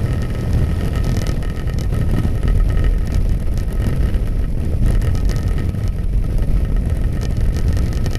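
Harley-Davidson Twin Cam 96 air-cooled V-twin cruising steadily at about 2600 rpm in sixth gear at 60 mph, mixed with a deep, steady rush of wind over the microphone at highway speed.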